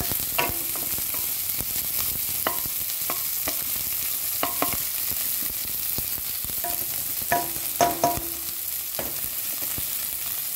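Chopped onions, garlic and green chillies sizzling in hot oil in a stainless steel kadhai as they are stirred, with the stirring utensil scraping and clinking against the steel pan every second or two.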